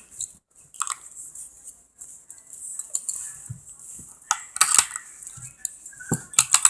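Metal handcuffs clinking and clicking as they are handled and put on, in a scatter of separate sharp clinks.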